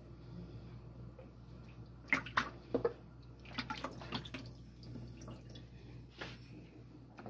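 Hands rubbing raw chicken pieces in lemon water in a plastic basin: wet splashing and sloshing in short spurts, loudest a couple of seconds in and again a little later.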